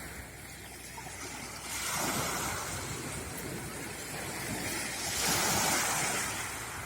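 Sea waves breaking and washing onto the shore, with two louder swells, about two seconds in and again around five seconds in. Some wind on the microphone.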